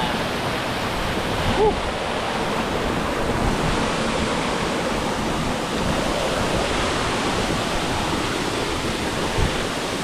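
A small waterfall cascading over rocks, a steady rush of water close to the microphone. A brief short blip of a tone about one and a half seconds in.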